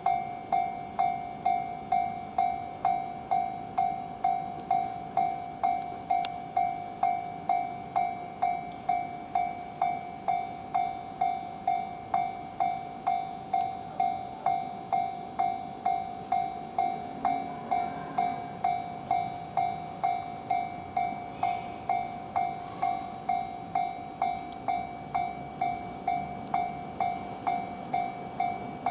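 Japanese railway level crossing alarm ringing steadily, one electronic ding repeating about twice a second.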